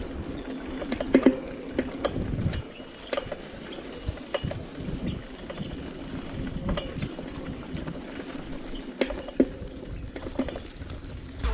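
BMX bike riding over a rough, cracked road and dirt path: steady tyre noise, with the bike rattling and knocking at irregular moments over bumps.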